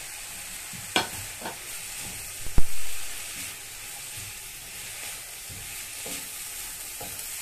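Wooden spatula stirring grated coconut into chopped banana stem in a pan, clicking and scraping against the pan over a steady sizzle. A sharp knock about two and a half seconds in is the loudest sound.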